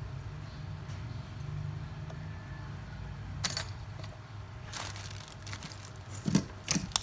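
Small hard objects such as tools and circuit boards clicking and clinking against a repair bench. There are a few sharp taps from about halfway through, over a steady low hum.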